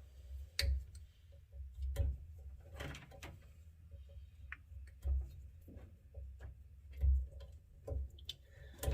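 Scattered light clicks, taps and a few dull thumps at irregular intervals, from hand tools and parts being handled.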